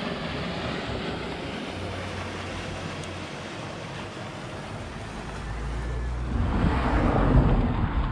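Small motorboat's engine running as it passes across the bay, over a steady rush of wind and water. It grows louder over the last few seconds.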